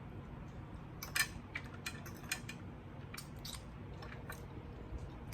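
A person chewing chicken adobo close to the microphone: a string of short mouth clicks and smacks, thickest from about a second in to near the end.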